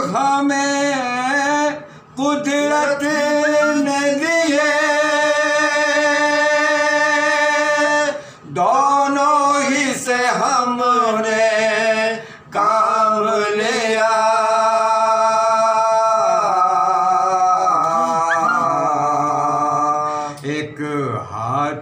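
Soz-khwani: unaccompanied male chanting of a soz, a Shia elegy, in long held, wavering melodic lines, with short breaks for breath about 2, 8 and 12 seconds in.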